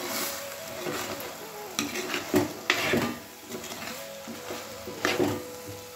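A steel spoon stirring and scraping a chicken mince filling around a hot pan, in several separate strokes, with a light sizzle underneath. The liquid has cooked off and the filling is being dry-fried.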